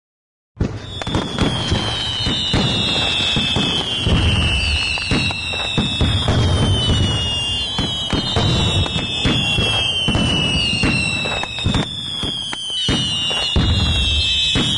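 Firecrackers and fireworks going off in a dense, steady crackle of bangs, with repeated falling whistles about every second and a half. It starts about half a second in.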